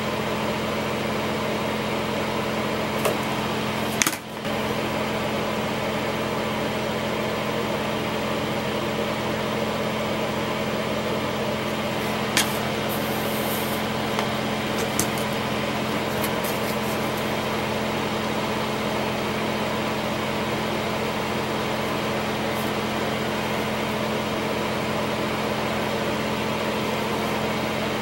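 Steady mechanical hum with a low drone and hiss, like a small fan or motor running, with a few brief clicks and taps; one click about four seconds in is followed by a short drop in level.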